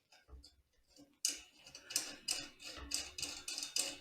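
A fast run of small sharp clicks, about four a second, starting about a second in, as the mic adapter is fitted onto a Tonor T30 boom arm.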